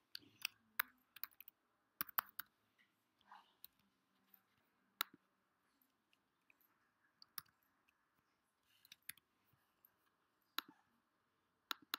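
Scattered keystrokes on a computer keyboard and mouse clicks: single sharp clicks at irregular intervals, some in quick pairs, with quiet gaps between.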